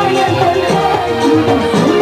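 A song with a woman singing over a band accompaniment.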